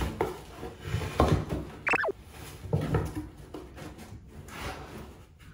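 Cardboard boxes knocking, scraping and rustling as cats climb on them and paw at them, with a short high squeak about two seconds in.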